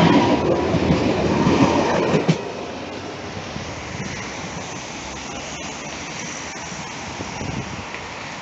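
Tram passing close by, its wheels rumbling on the rails with a steady whine over them. The sound drops away suddenly about two seconds in, leaving a quieter steady rumble.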